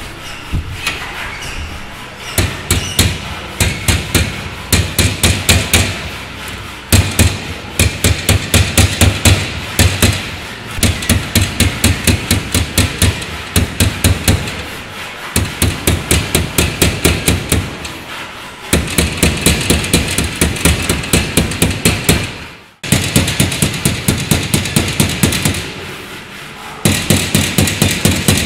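Rapid, loud hammer blows on metal, about four or five a second, in runs of several seconds broken by short pauses.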